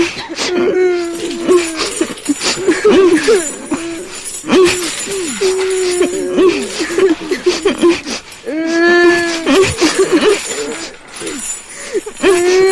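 Ghostly moaning and wailing voices, wavering and gliding in pitch, layered over metal chains clinking and rattling as they are dragged; one stronger, fuller wail about nine seconds in.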